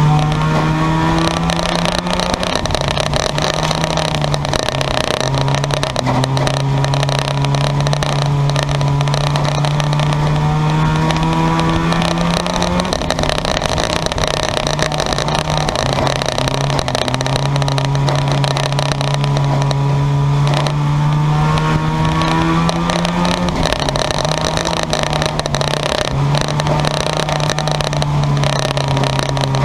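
Junk yard race cars' engines running hard on the oval, with a steady engine note whose pitch drops and then climbs again about every ten to eleven seconds as the cars lift and get back on the throttle.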